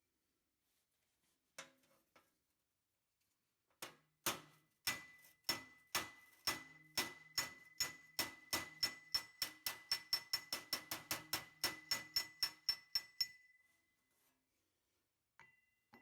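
Hammer blows on sheet-metal body panels: about three dozen sharp strikes with a metallic ring, speeding up from about two to about four a second, then stopping abruptly.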